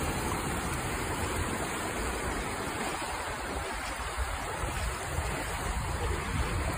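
Floodwater rushing through a street: a steady, even rush of flowing water.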